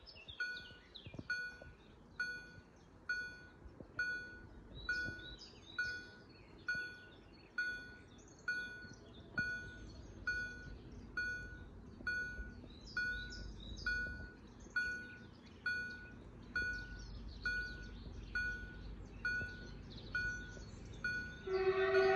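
Railway level-crossing warning bell ringing steadily at about one ding a second, with birds chirping. Near the end a train horn starts a loud, held blast.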